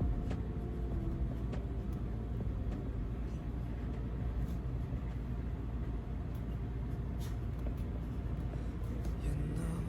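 Steady low rumble of a road vehicle, with a few faint ticks.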